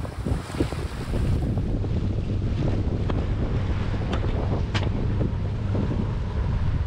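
Wind buffeting the microphone in a steady low rumble, over water rushing and splashing along the hull of a sailing yacht under way.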